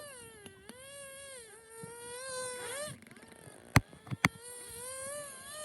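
Dusky dolphin whistles played through a smart speaker: a run of long, wavering, squeal-like calls that bend up and down in pitch. Two sharp clicks, the loudest sounds, come a little under four seconds in.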